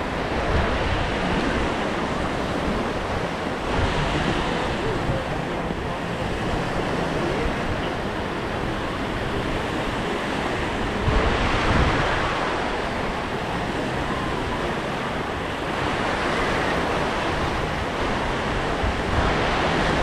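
Small sea waves breaking and washing up on a sandy shore, swelling louder every few seconds, with wind buffeting the microphone.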